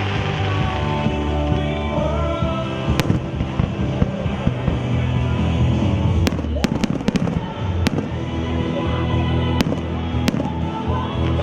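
Aerial fireworks going off in sharp reports, a single bang, then a quick cluster of several around the middle and a few more spaced out near the end, over loud music from the show's soundtrack.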